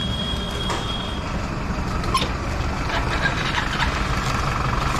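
Street traffic: vehicle engines running steadily with a low rumble, a thin high tone sounding through about the first second, and a few short clicks later on.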